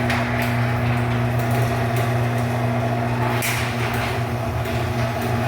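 Garage door opener running, a steady motor hum with scattered clicks and knocks from the drive and door as it travels.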